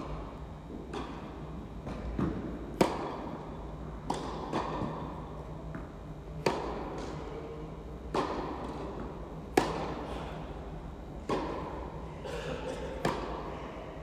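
A tennis rally: balls struck by rackets with sharp pops about every one and a half to two seconds, and quieter ball bounces on the court between them, echoing in an indoor hall.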